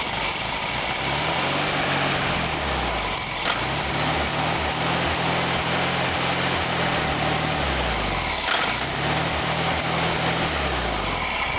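VW Beetle's air-cooled flat-four engine running on the throttle after a start on starting fluid, its speed rising and falling over and over as the gas is pumped to keep it alive. It will not hold an idle.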